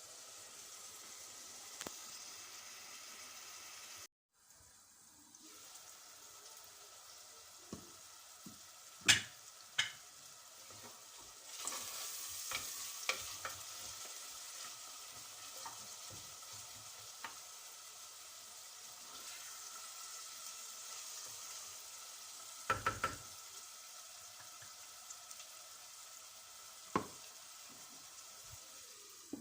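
Food frying in a pan with a steady sizzle, stirred with a utensil that knocks and clinks against the pan several times. The sizzle drops out briefly about four seconds in.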